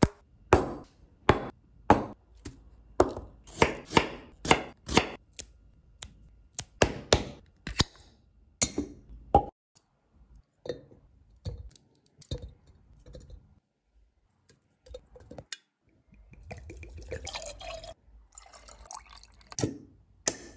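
Kitchen handling sounds around a glass jar of pickled gherkins in brine: a quick run of sharp knocks and taps, about two a second, for the first half. Then sparser clinks, a few seconds of liquid sound, and one sharp click near the end.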